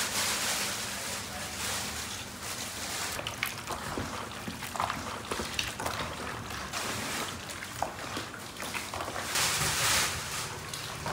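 Water poured from a metal ladle into a plastic basin of raw cut meat, then bare hands mixing the wet meat chunks with small squelching clicks.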